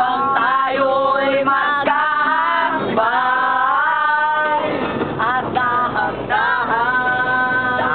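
Young people singing a pop ballad together to a strummed acoustic guitar, in long held notes.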